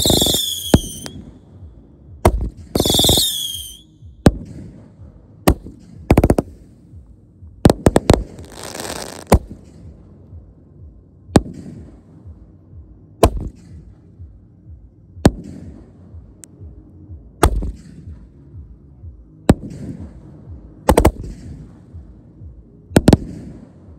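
Consumer fireworks going off in a series of sharp bangs. The first shots carry high whistles that fall in pitch, a hissing burst comes a little before halfway, and after that single reports follow about every two seconds.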